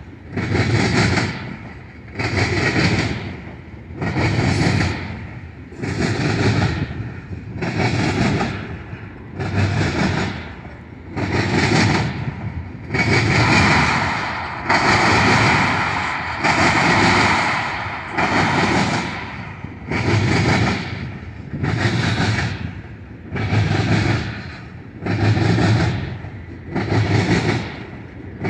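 Steel wheels of a freight train of tank cars clattering over the track in a steady rhythm: a clanking burst about every two seconds as each car rolls by. The clatter runs louder and nearly continuous for a few seconds midway.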